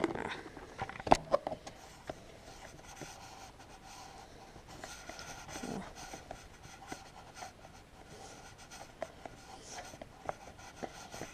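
Hands working on a small engine: a few sharp clicks in the first second or two, then faint scratching and rubbing of metal and plastic parts with scattered light ticks.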